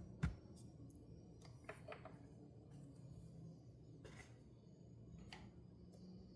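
Faint clicks and taps of a laptop and its small parts being handled, with one sharper knock just after the start and a few light scattered clicks after it, over a low room hum.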